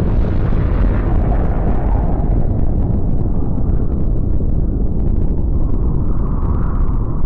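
Explosion effect: a long, deep, continuous rumble that turns duller over the first few seconds.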